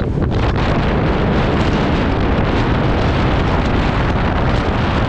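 Wind noise buffeting the microphone of a moving vehicle: a loud, steady rush.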